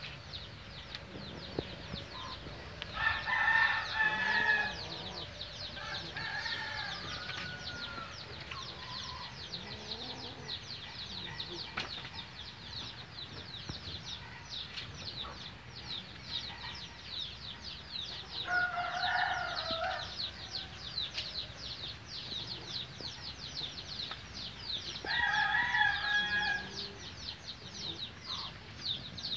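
A rooster crowing three times, each crow about two seconds long: about three seconds in, again after about eighteen seconds, and near the end. A continuous, rapid high chirping runs underneath.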